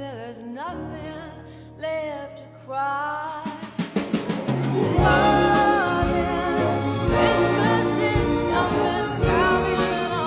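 Pop song with orchestra: a singer's wavering vocal line over soft sustained accompaniment, then a quickening percussion roll about three to four seconds in that builds into the full orchestra and band playing loudly.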